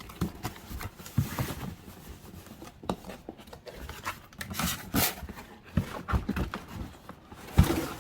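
Cardboard shipping box and its packing being opened and handled: irregular rustling with a few sharp knocks and taps.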